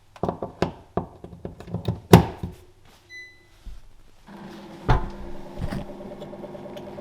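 A few knocks and clicks of the hose fitting being tightened, then a short electronic beep about three seconds in as the Brondell Swash bidet seat is plugged in. From about four seconds a steady hum follows as the seat powers up and starts to fill.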